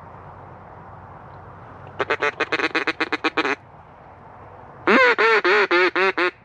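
Duck quacks: a quick run of about a dozen short quacks, then after a pause about six longer, louder quacks.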